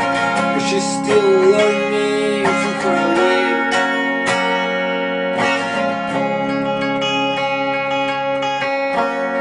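Electric guitar strumming chords that ring on, with a wavering held melody note from about one second in to past three seconds.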